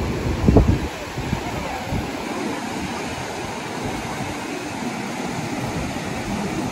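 Ocean surf breaking and washing up the beach, a steady rush, with wind buffeting the microphone, loudest in a gust about half a second in.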